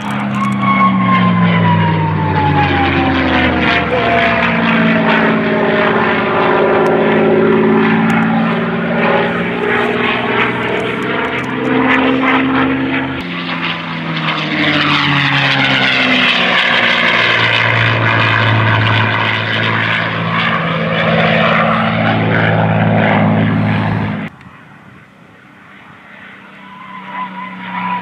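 P-51 Mustang's V-12 piston engine and propeller as the aircraft makes low passes, its pitch falling sharply as it goes by in the first few seconds. The sound runs loud and steady, then drops off suddenly near the end, leaving it faint.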